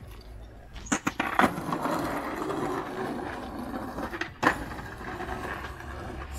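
Skateboard dropped onto asphalt with a few sharp clacks about a second in, then its wheels rolling on the asphalt, with one sharp clack of the board about four and a half seconds in.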